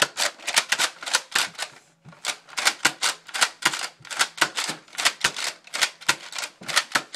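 Nerf Retaliator, a pump-action spring-powered dart blaster, being slide-primed and fired in rapid succession: a quick run of sharp plastic clacks, about three to four a second, with a brief lull about two seconds in.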